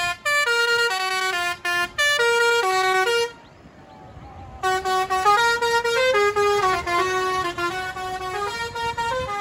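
Musical horn on a parade tractor playing a quick tune of short stepped notes, breaking off for a second or so partway through and then playing on.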